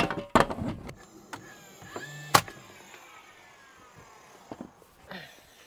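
Pre-hung exterior door being handled and shut while it is fitted: a sharp knock at the start, a second knock soon after, and a single sharp click a little over two seconds in, with faint handling noise between.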